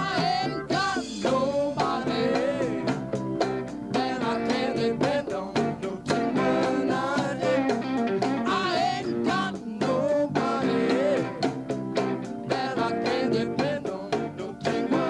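A live rock band playing, with electric guitar, keyboards, bass and drums, and a woman singing over them.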